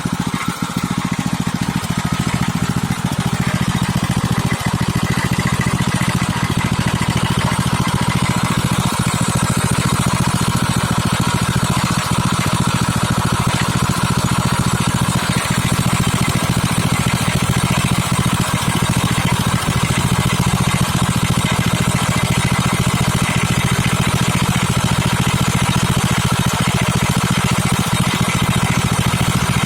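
Engine running steadily at idle with a knock, the fault being shown.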